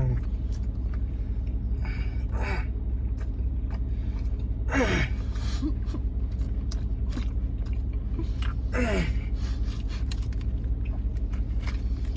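Two short falling vocal sounds, about five and nine seconds in, from someone eating, over a steady low hum, with a few faint clicks.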